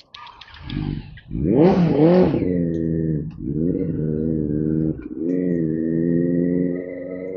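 Benelli 600i's inline-four engine through an aftermarket Akrapovic exhaust: two quick throttle blips, then the bike pulls on steadily. The note drops briefly twice, then rises slowly.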